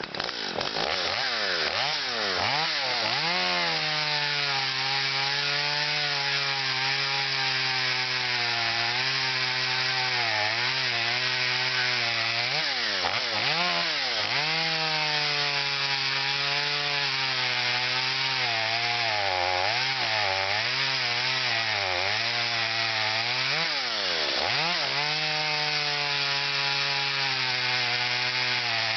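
Stihl MS210 C two-stroke chainsaw running at high revs, its pitch dropping sharply and recovering several times.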